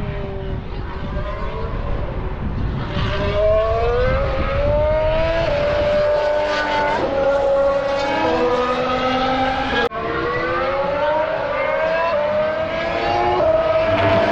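Formula 1 car's turbocharged V6 running on a lap, its pitch climbing in repeated rising glides and steps as it accelerates and changes gear. The sound cuts out for an instant about ten seconds in.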